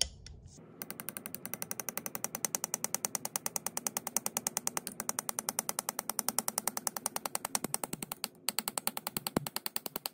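Small hammer tapping a punch in a quick, steady run of light metal taps, driving the Geissele Maritime bolt catch roll pin into an AR-15 lower receiver, with a brief break near the end. The taps are starting the roll pin in its hole.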